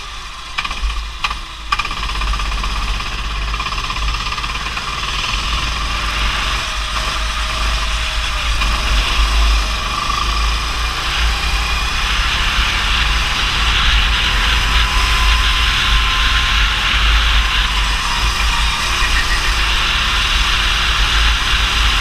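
Go-kart engine running at speed, heard from the kart with heavy wind rumble on the microphone, slowly getting louder. A few sharp knocks come in the first two seconds.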